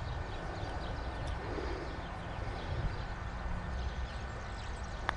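Steady low rumble of wind on the microphone, then near the end a single sharp click of a putter face striking a golf ball.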